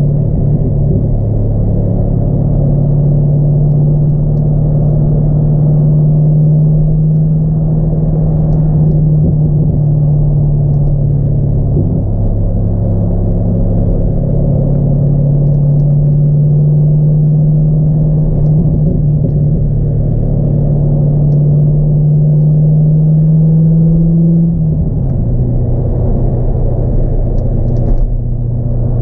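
2002 C5 Corvette's 5.7-litre LS1 V8 with a cold air intake, heard from inside the cabin as a steady engine drone while cruising. Its pitch steps up just after the start and climbs slowly, breaks briefly about twelve seconds in, climbs again, then drops back sharply a few seconds before the end.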